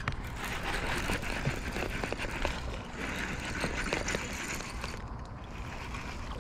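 Baitcasting reel being cranked to retrieve line, a steady mechanical whir with many small clicks that eases off near the end.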